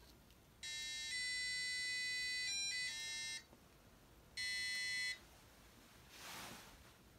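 Electronic beeping from a knee arthrometer as its force handle is pulled during a laxity measurement: one long buzzy beep of about three seconds, then a short beep about a second later.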